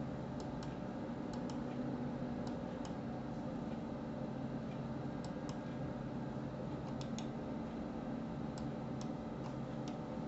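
Computer mouse buttons clicking, about a dozen clicks, mostly in quick pairs, over a steady low hum.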